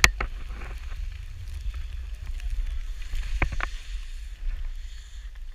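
Skis sliding and scraping over snow with wind rumbling on the pole-mounted camera's microphone. A sharp knock right at the start and two quick knocks about three and a half seconds in.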